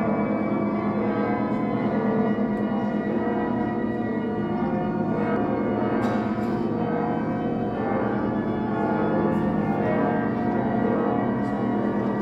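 Church bells ringing continuously: a dense, steady wash of overlapping ringing tones.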